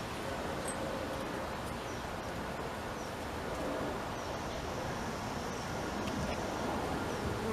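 Honeybees buzzing steadily around an open hive, a low even hum with outdoor background hiss.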